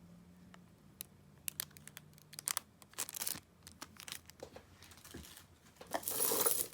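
Costume jewelry being handled and sorted: scattered small clicks and clinks of metal pieces, then a longer rustle near the end.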